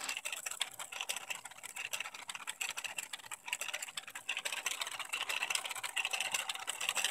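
3D-printed plastic tank track running on its sprockets, driven directly by a pancake brushless motor: a rapid, continuous clatter of plastic links clicking, with a faint steady hum beneath.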